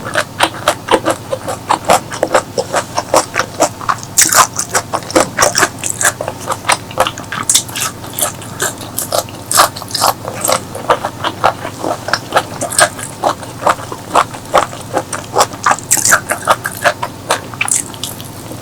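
Close-miked eating: a person chewing and biting food, with many sharp crunchy clicks and mouth noises coming in quick succession.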